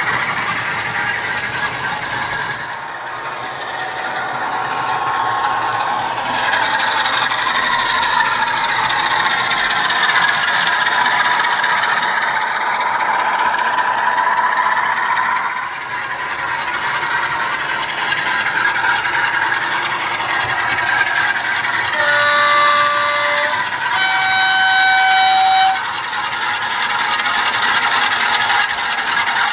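Model locomotive DCC sound decoder playing a Class 45 diesel sound file through a small speaker: the diesel engine runs with its revs rising and falling. About 22 seconds in it sounds a two-tone horn, a lower note followed by a longer, louder higher note.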